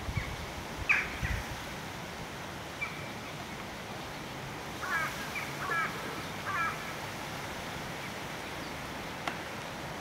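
Hooded crow calling: one short call about a second in, then three quick runs of short repeated notes between five and seven seconds in, over a steady background hiss.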